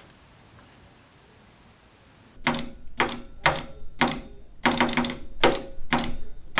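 Low room tone, then from about two and a half seconds in a run of sharp taps on a hard surface, some single and some in quick groups with uneven gaps: a message being tapped out in Morse code.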